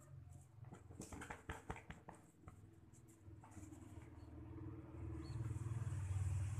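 Short clicks and scuffs of a small dog moving about on a fabric cushion, then a low vehicle engine hum with a hiss that grows steadily louder from a few seconds in and is loudest near the end.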